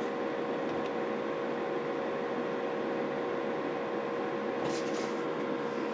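Steady electronic hiss with a constant hum-like tone from the radio test bench, as a low audio test tone is fed into a CB transceiver for alignment.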